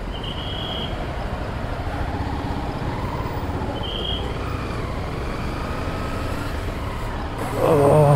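Motorcycle running at low speed in dense city traffic, with steady engine and road noise. Two short high beeps sound early and about four seconds in, and a louder wavering blast near the end.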